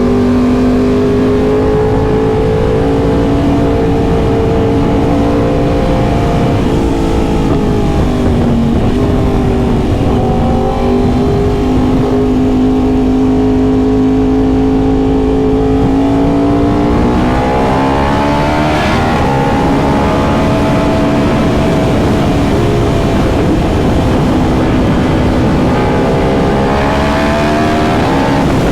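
Yamaha R1M's crossplane inline-four engine running while riding: it holds a steady pitch, drops off and picks up again about a third of the way in, climbs to a higher steady pitch past halfway, and dips and rises once more near the end.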